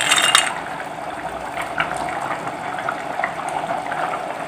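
Rice polao simmering in a pan of boiling water, a steady bubbling with scattered small pops. A brief louder rush of noise comes right at the start.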